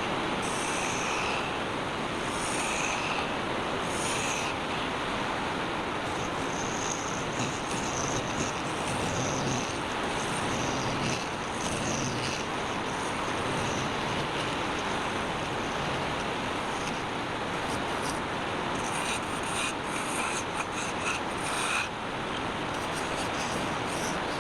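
Wood lathe running steadily, with a turning tool cutting the spinning wood in intermittent passes that add a higher-pitched scraping hiss.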